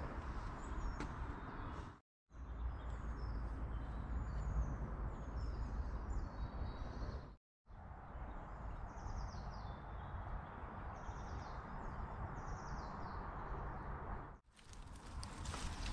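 Small birds chirping repeatedly over a steady low rushing background noise. The sound breaks off to silence twice, briefly. Near the end a run of short knocks or crunches begins.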